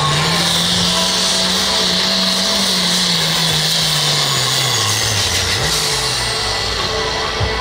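Light limited super stock pulling tractor's engine running loud at full power under load, pulling the sled. Its pitch holds and climbs a little, then drops off steadily over the next few seconds as the engine bogs and the tractor slows near the end of the pull.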